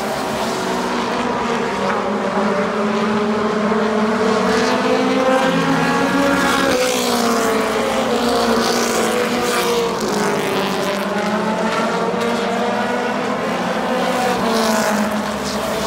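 Several stock cars racing around a short oval track, engines running hard. One car passes close about seven seconds in, its engine note rising and then dropping sharply in pitch as it goes by.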